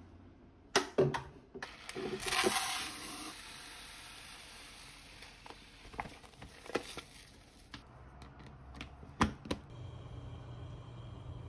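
Dry rice being scooped and poured into a plastic container, heard as a hissing rush of grains about two seconds in, with sharp clicks and knocks of plastic being handled. A low steady hum comes in near the end.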